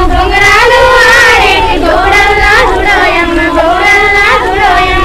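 A high voice singing a Telugu paddy-transplanting folk song (vari natlu pata) in a gliding, ornamented melody, with a low rumble underneath.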